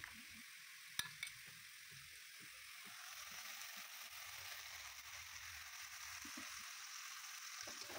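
Faint, steady sizzle of spice paste frying in oil in a kadai, with a single light click of a spoon about a second in. The sizzle grows a little from about three seconds in, as whisked yogurt is poured into the hot pan.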